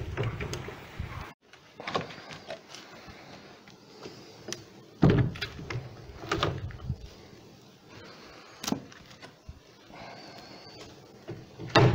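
Wooden beehive frames being slid and knocked one after another into the metal box of a steam wax melter: irregular clunks and scrapes of wood on metal, the loudest about five seconds in and again just before the end.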